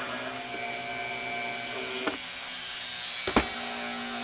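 Tacklife RTD36AC rotary tool running steadily with its supplied flex shaft attached, a steady whine from the motor and spinning shaft. It runs smoothly, with the shaft mated properly. Two light knocks come about two seconds and three and a half seconds in.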